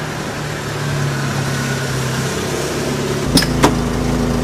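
Car engine running with a steady hum, with two sharp clicks about a third of a second apart a little over three seconds in as the car door is opened, followed by a deeper low rumble.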